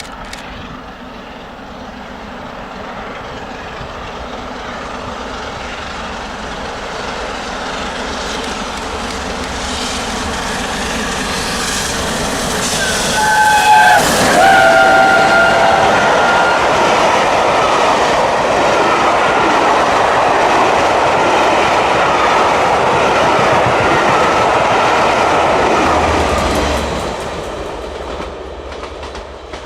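LNER Peppercorn A1 class Pacific steam locomotive 60163 Tornado approaching and passing at speed, growing steadily louder. Its whistle sounds as it passes about 13 seconds in, dropping in pitch as it goes by. Its train of carriages then rolls past with wheel clatter until the sound falls away near the end.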